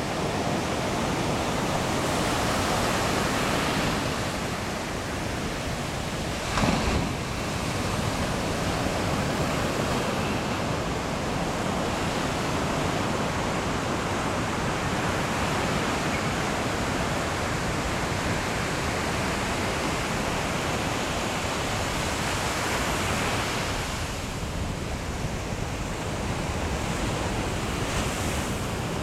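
Pacific Ocean surf breaking and washing up a sandy beach: a steady rush that swells and eases, with a brief louder surge about seven seconds in.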